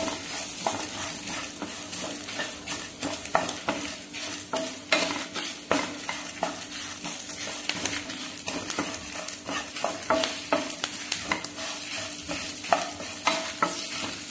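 Whole spices, dried red chillies, curry leaves and chana dal sizzling in a spoonful of sesame oil in a nonstick pan. A spatula stirs and scrapes them round in irregular strokes, with small crackles. They are being dry-roasted until fragrant and the dal turns crisp.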